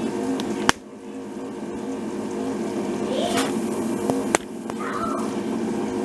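Keurig single-cup coffee maker's lid and handle snapping shut over the K-cup with a sharp click about a second in, followed by a second sharp click a few seconds later. Faint children's voices in the background.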